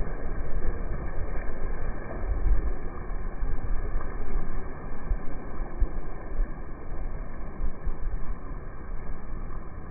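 Wind buffeting the microphone in a low rumble that rises and falls in gusts, over the wash of surf on the shore.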